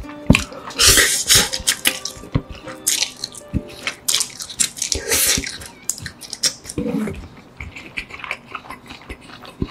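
Close-up slurping of saucy noodles and wet chewing, with several loud slurps and smacking mouth clicks.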